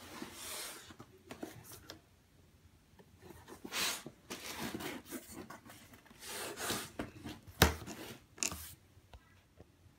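A hand rubbing and brushing over a cardboard shipping box: several soft scraping swishes, then a sharp tap about three-quarters of the way through, the loudest sound, and a lighter tap just after.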